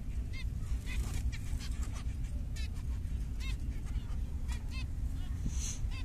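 Zebra finches calling, many short repeated calls at about two a second over a steady low rumble. A brief hiss near the end.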